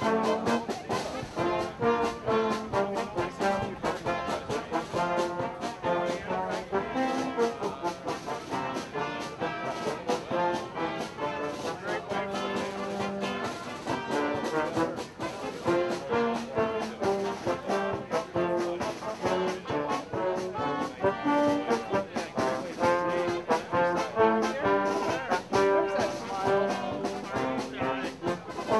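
A live band playing a tune led by brass instruments, with a steady beat.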